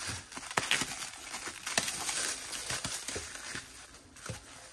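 Plastic bag and foam packing wrap crinkling and rustling as they are pulled off a packed item, with many small crackles, fading toward the end.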